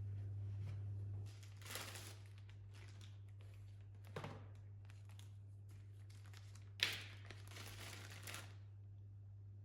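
Faint crinkling and rustling in a few short bouts, the longest starting sharply about seven seconds in, over a steady low hum.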